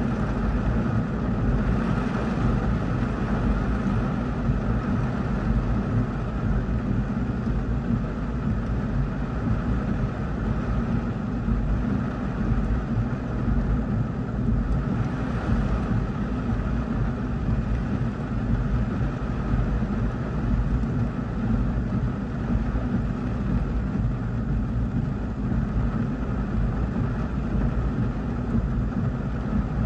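Heavy rain falling on a car's roof and windshield, heard from inside the cabin as a steady, dense noise with a strong low rumble. It swells briefly about two seconds in and again about halfway through.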